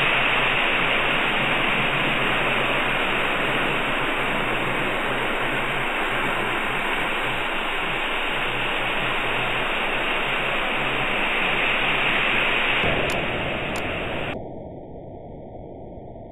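Steady, loud hiss of noise from the nest camera's outdoor microphone. It drops suddenly to a much quieter level about fourteen seconds in.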